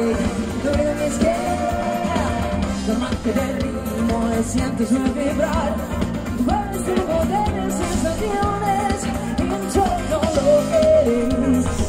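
A band playing a pop-rock song, with a lead singer's melody over a steady bass line and beat.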